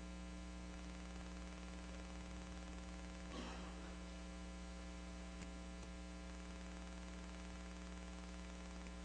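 Steady electrical mains hum, with a faint brief rustle about three and a half seconds in.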